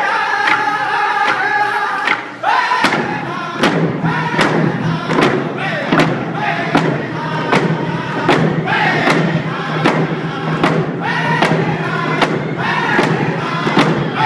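Round dance song: a group of singers singing in unison with a steady drumbeat. The drum comes in about three seconds in and strikes about twice a second.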